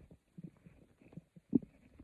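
A person's stomach growling: a run of short, low, irregular gurgles, the loudest about one and a half seconds in.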